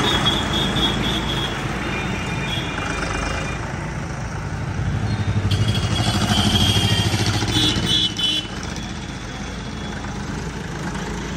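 Diesel engine of a new John Deere 5075E tractor running as it drives slowly past, with a throbbing rumble that grows loudest around the middle and then fades, amid street traffic.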